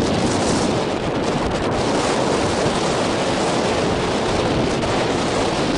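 Wind buffeting the microphone: a loud, steady rushing noise with no let-up.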